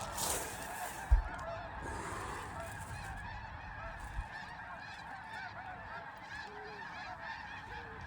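A large flock of snow geese calling together: a dense, continuous chorus of many overlapping short honks and yelps. A brief low thump comes about a second in.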